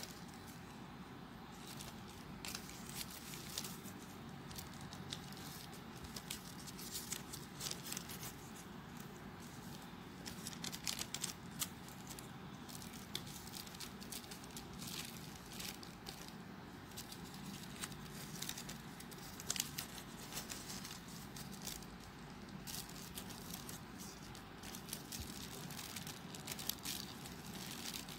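Folded paper origami units rustling and clicking as they are handled and pushed into a 3D modular origami model: an uneven run of small crisp ticks and scrapes over a low steady hum.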